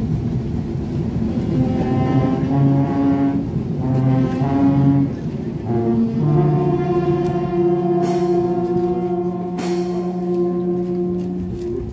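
Brass band playing a slow processional march: held notes moving step by step, then one long chord sustained through the second half that breaks off just before the end. Two short crashes sound over the held chord.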